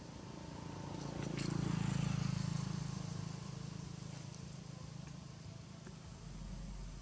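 A low rumble that swells to its loudest about two seconds in and then slowly fades away.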